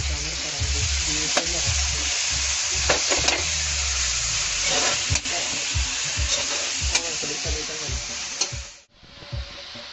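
Diced bacon and minced garlic sizzling in a hot wok, freshly added, while a plastic spatula stirs them, with scattered clicks and scrapes of the spatula on the pan. Near the end the sound cuts off abruptly and a much quieter sizzle follows.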